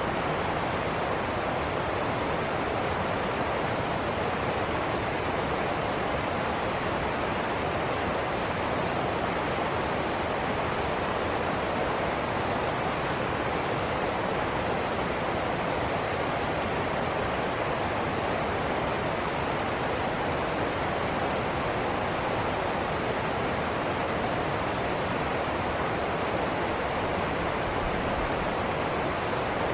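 River water rushing over rocks and a small ledge cascade into shallow rapids, a steady, even rush of white water.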